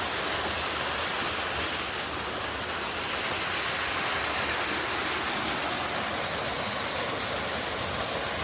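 Waterfall: water pouring and splashing in a steady rush.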